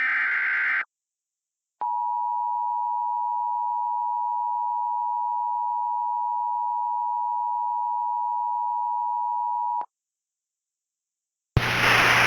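Emergency Alert System alert: a short screech of SAME digital header data ends the opening second. After a second of silence, a steady high attention tone sounds for about eight seconds and cuts off cleanly. Near the end a loud hiss of static with a low hum comes in.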